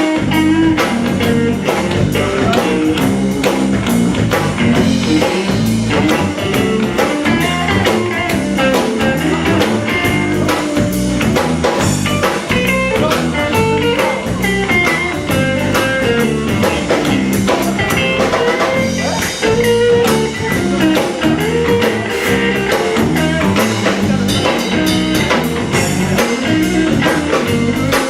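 A band playing bluesy rock: guitar over a drum kit keeping a steady beat.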